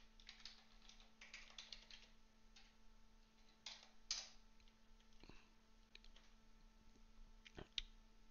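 Faint computer keyboard typing: a quick run of keystrokes in the first two seconds, then scattered single keystrokes with pauses between them.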